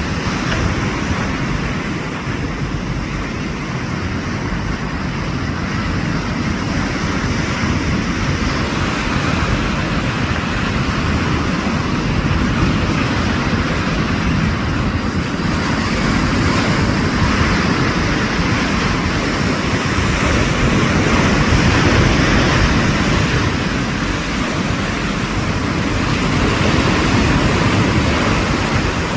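Sea surf washing continuously, a steady rushing noise that swells and eases slightly.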